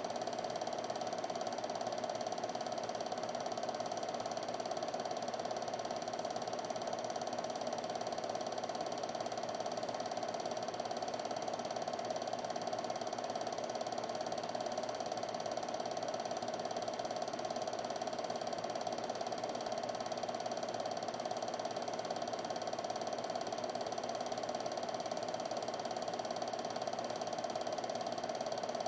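Home-movie film projector running: a steady mechanical whir of its film-advance mechanism, unchanging throughout.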